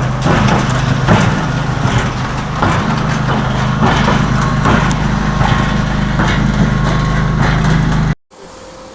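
Engine-driven concrete mixer running steadily, with stones in the mix knocking irregularly against the turning drum; it cuts off suddenly near the end.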